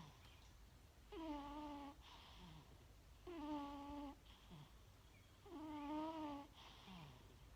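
Domestic cat snoring in its sleep: three drawn-out, wavering, pitched snores about two seconds apart, each followed by a short breathy rasp. It is a strange noise, easily mistaken for choking.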